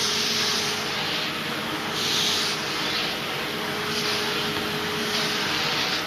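Taski Vento 8 commercial tub vacuum cleaner running steadily, a rushing hiss over a faint steady hum. The hiss swells every second or two as the floor tool is worked back and forth over a rug.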